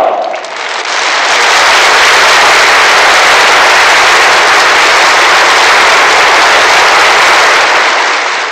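Large audience applauding: dense, steady clapping that fades away near the end.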